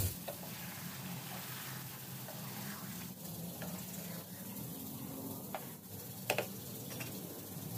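Chicken pieces and grated tomato sizzling gently in oil in a frying pan while a spatula stirs them, with a few light clicks and scrapes of the spatula against the pan in the second half.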